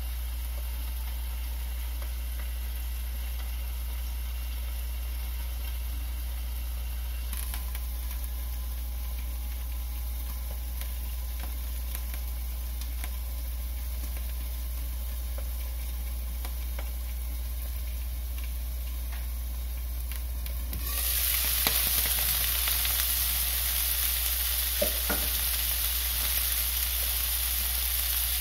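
Filefish pieces frying in oil in a nonstick pan, a faint sizzle muffled under a glass lid. About 21 seconds in, the sizzle turns suddenly much louder and brighter as the lid comes off.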